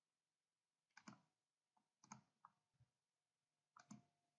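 Faint computer mouse clicks, about four short clicks spaced roughly a second apart, the last near the end.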